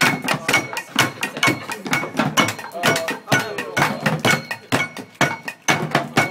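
Improvised percussion: a plastic trash can and other objects beaten by hand in a steady, fast rhythm of about four hits a second, with voices over the beat.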